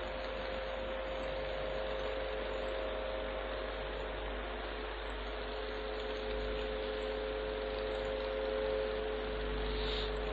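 Steady electrical hum with an even hiss behind it, unchanging throughout: the background noise of a recording microphone.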